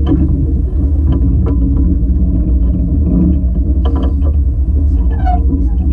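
Steam locomotive's running gear rolling along the rails, heard right beside the driving wheels: a steady low rumble with scattered knocks and clicks from wheels and rods, and a short squeal near the end.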